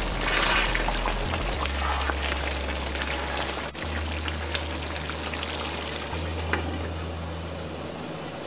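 Thick chicken and green papaya curry simmering in a pan, the sauce bubbling with small pops and spatters, while a spoon stirs it.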